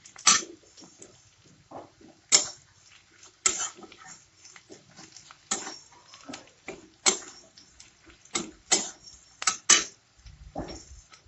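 A metal spatula scraping and knocking against a kadai (wok) as onions and turmeric paste are stirred and fried in oil. There are about ten sharp strokes, irregularly spaced.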